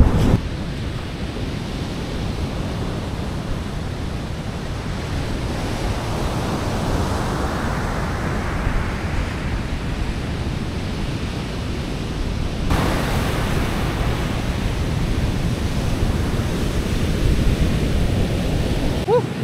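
Pacific surf breaking and washing up the beach, with wind buffeting the microphone in a steady low rumble. A wave swells and washes in about halfway through.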